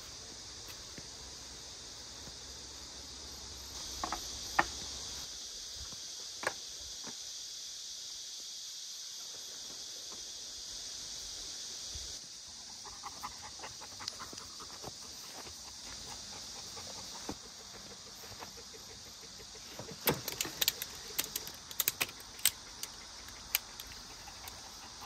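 Steady high-pitched drone of a summer insect chorus, its level shifting a few times. Scattered sharp clicks and knocks sound over it, with a quick flurry of them near the end.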